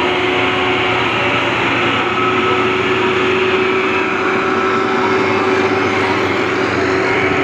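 Hino FM1J heavy trucks' diesel engines running steadily at road speed, mixed with tyre noise: a constant drone that holds level throughout, with no rise or fall.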